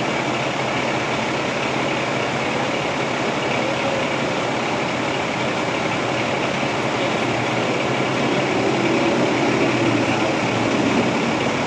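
Steady hiss of radio static from a scanner tuned to a fire-department channel, the channel open with nobody talking.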